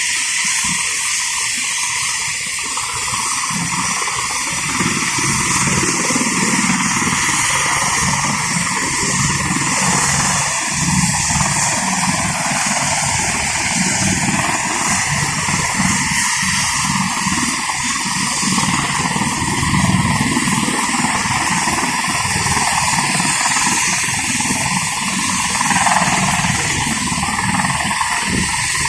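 Helicopter rotor running steadily: a loud, continuous rushing whir over an uneven low rumble.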